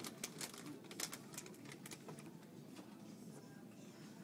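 Plastic treat packet being handled and crinkled: a quick run of small clicks and crackles, dying away about two seconds in to a faint steady background hum.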